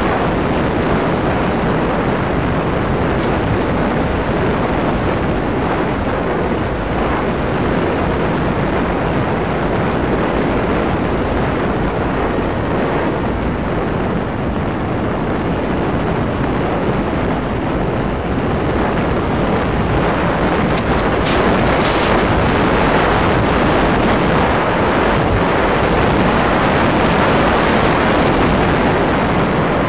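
Steady rush of wind over the onboard microphone of a small electric FPV model plane in flight, mixed with its motor and propeller noise, a little louder in the last third. A few short high clicks come about two-thirds of the way through.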